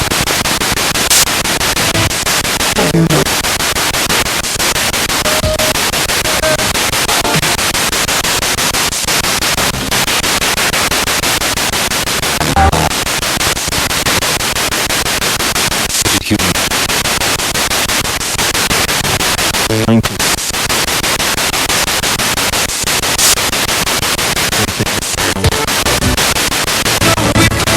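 Spirit box radio sweeping through stations: a loud, steady hiss of static with short gaps and brief snatches of voices and tones scattered through it.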